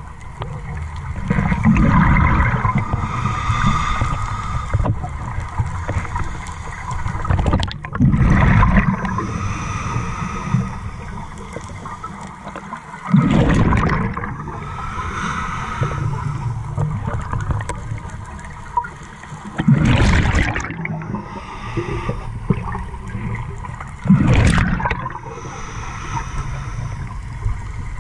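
Scuba breathing through a regulator heard underwater: five loud gurgling rushes of exhaled bubbles, about one every five seconds, with a softer hiss of inhaling between them.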